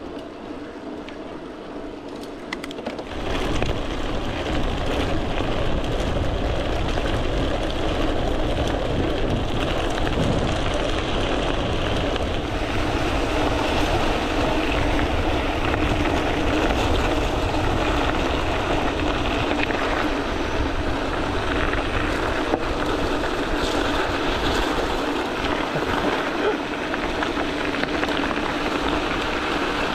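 Bicycle tyres rolling over a loose gravel track, a steady rumble with wind on the microphone. It grows much louder about three seconds in, as the bike leaves smooth tarmac for gravel.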